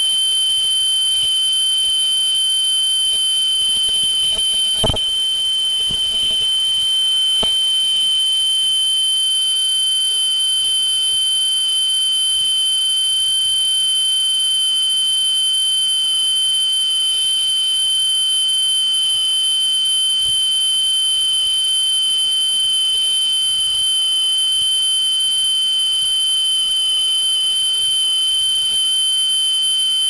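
ZCUT-220 ultrasonic velcro punching and cutting machine giving off a steady high-pitched whine. A sharp knock comes about five seconds in and a fainter one a couple of seconds later.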